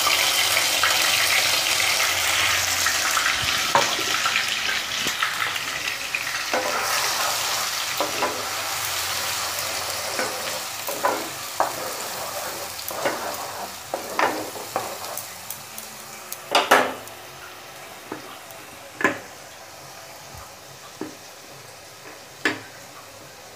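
Onion paste frying in hot oil in a nonstick kadhai: a loud sizzle as it goes in, dying down over the first fifteen seconds or so. Meanwhile a wooden spoon stirs it, with a few sharp knocks against the pan, the loudest about two-thirds of the way through.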